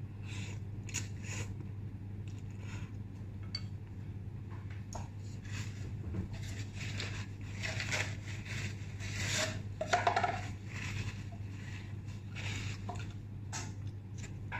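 Wooden chopsticks clicking and scraping against a bowl while noodles are eaten, with a paper tissue rustling in the middle. A steady low hum runs underneath.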